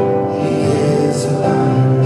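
Live church worship band music, with long held chords from the band.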